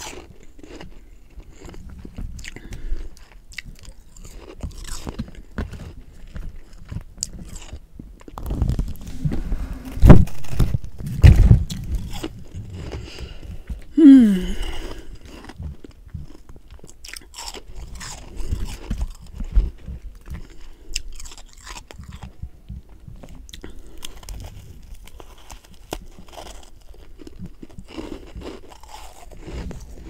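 Close-miked crunching and chewing of powdery humidifier freezer frost, the bites loudest about ten to twelve seconds in. A short tone slides down in pitch about fourteen seconds in.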